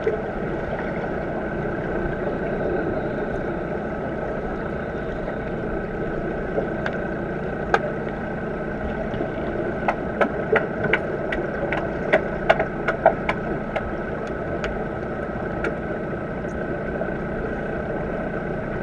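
Underwater sound in a swimming pool, heard through a submerged camera: a steady hum and rush with a few faint steady tones. From about seven seconds in comes a string of sharp clicks and knocks carried through the water, thickest between about ten and thirteen seconds.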